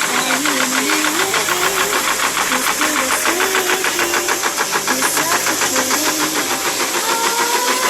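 A 45-ton high-speed automatic press machine stamping continuously, its strokes coming in a rapid, even rhythm of several a second.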